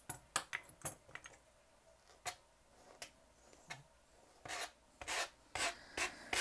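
A few short, sharp snips of grooming shears cutting through a Maltese's long coat in the first second or so, then a brush stroked through the long silky hair, about two swishing strokes a second near the end.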